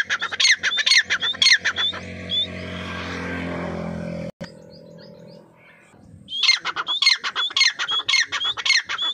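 Grey francolin calling: a rapid run of loud, shrill notes for about two seconds, then again from about six seconds in. Between the two runs a steady low rumble rises and cuts off suddenly.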